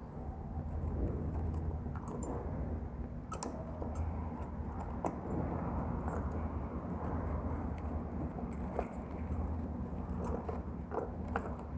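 Yamaha Mio Soul scooter's single-cylinder engine running steadily at an even pitch, with a few faint ticks over it.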